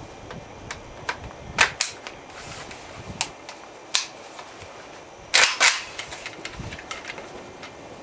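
Sharp gunshot cracks at a shooting range: a quick pair about a second and a half in, a single shot about four seconds in, and a louder pair about five and a half seconds in, with faint clicks between.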